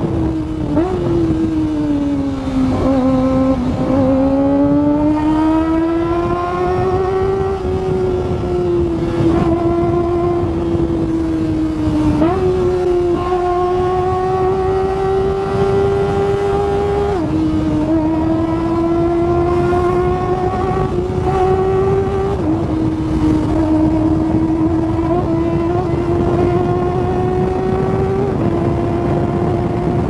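Kawasaki ZX-25R's 249 cc inline-four engine running high in the rev range, heard from the rider's helmet. The pitch dips and then climbs slowly, jumps up sharply once near the middle, and drops sharply three times in the second half as it shifts up, climbing again after each shift.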